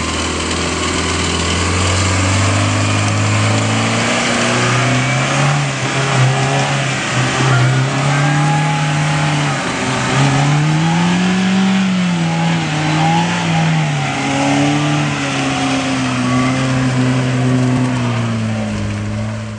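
A first-generation Kia Sportage's engine working under load as it pushes through deep mud ruts, the revs climbing about three seconds in and then rising and falling repeatedly as the throttle is worked.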